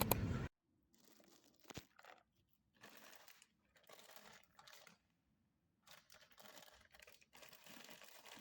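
A loud rumble cuts off abruptly about half a second in. What follows is near silence with faint, intermittent rustling and crinkling and one short click.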